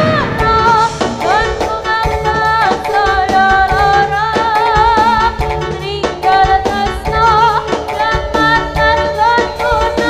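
Live jaranan music played loud through a sound system: a woman sings with a wavering vibrato over regular drum strokes, percussion and a steady bass.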